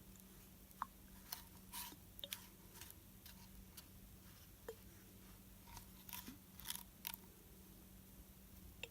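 Faint, scattered light clicks and small ringing tinks of a glass storm glass being handled.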